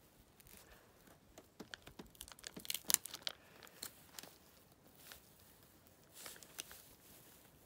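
Crackling and tearing of glued foil and adhesive as a blade tool pries apart lithium-ion pouch cells in a battery module. A dense run of sharp crackles peaks about three seconds in, followed by a few scattered clicks.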